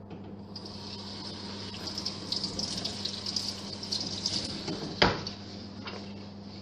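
Kitchen tap running into a stainless steel sink as a potato is rinsed under it by hand. The water starts about half a second in and stops about five seconds in with a single sharp knock.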